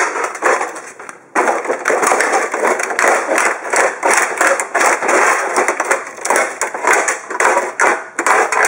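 Sandaled foot stomping on the plastic and sheet-metal casing of a Sony CDP-CE305 CD player, a run of knocks and rattles that becomes almost continuous from a little past a second in.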